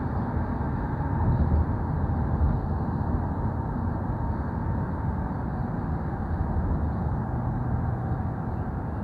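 Steady road and engine noise inside a moving car's cabin, a low rumble of tyres on the road through a motorway tunnel.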